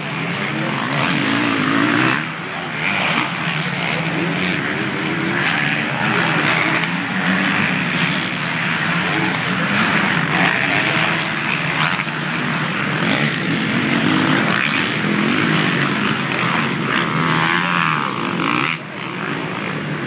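Motocross dirt bikes racing, several engines revving continuously with their pitch rising and falling.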